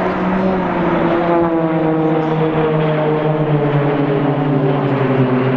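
Pilatus PC-9/A turboprop trainers flying overhead in formation: a loud, steady propeller drone whose pitch slowly falls as they fly past.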